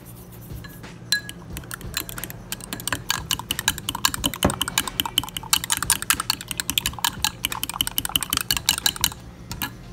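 Metal fork beating eggs in a glass tumbler: rapid clicking of the tines against the glass, building up about three seconds in and stopping near the end.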